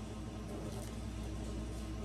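Half an onion having its outer layers peeled off by hand, a faint rustle and crackle of skin, over a steady low hum of kitchen equipment.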